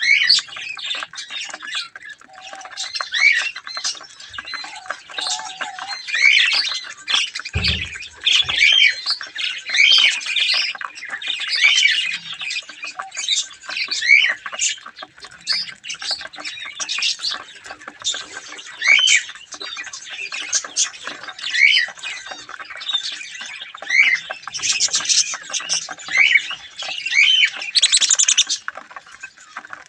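A flock of budgerigars chattering: many overlapping quick chirps, squeaks and warbles at once. A single dull thump sounds about a quarter of the way in.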